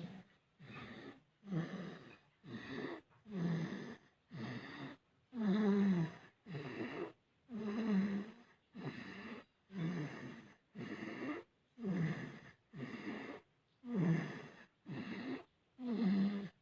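A sleeping baby snoring, with quick, regular breaths in and out, about one sound every three quarters of a second. Many of the breaths carry a low, buzzy snore tone that dips in pitch.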